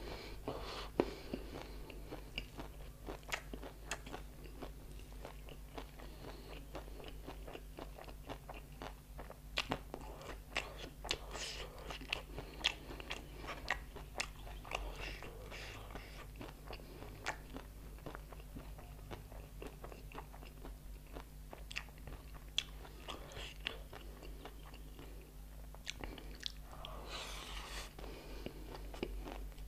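Crunchy chatpate snack being chewed with the mouth: many sharp, irregular crunches as bites of the dry spiced mix are broken up.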